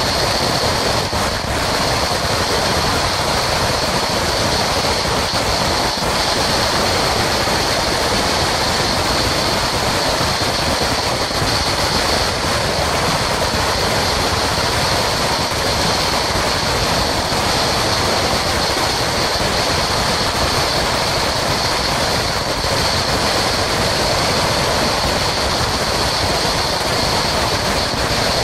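A Sinturon ni Hudas, a long linked string of small firecrackers, going off in a dense, unbroken crackle of rapid small bangs at a steady level.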